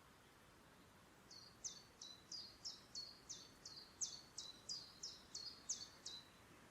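A songbird singing a string of about fourteen identical high, sharp notes, each sweeping down in pitch, at roughly three a second; it starts about a second in and stops shortly before the end, over a faint background hiss.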